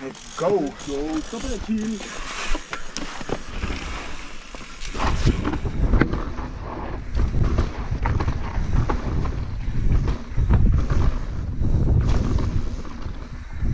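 Downhill mountain bike riding a rough dirt and rock trail: wind buffeting the rider's camera microphone, tyres rumbling over the ground and the bike knocking and rattling over bumps, getting loud about five seconds in as speed builds. A rider's voice calls out briefly at the start.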